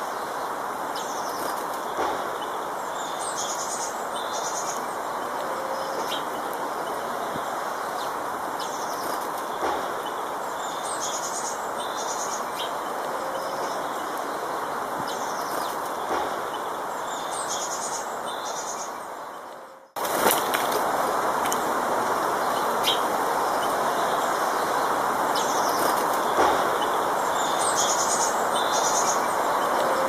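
A songbird sings short, high phrases every few seconds over a steady background rush. About two-thirds of the way through, the sound fades out briefly and then comes back a little louder.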